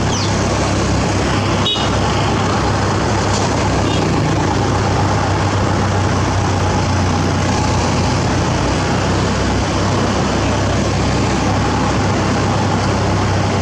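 Heavy diesel engine running steadily at a constant speed, with a sharp click about two seconds in.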